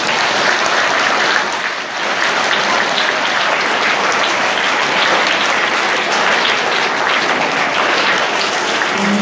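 A large audience of schoolboys applauding steadily, many hands clapping at once, at the close of a speech.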